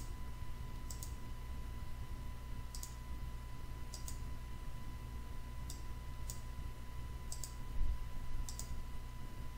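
Computer mouse button clicking while files are selected one by one: about ten sharp clicks at uneven intervals, some in quick pairs. A low steady electrical hum lies underneath.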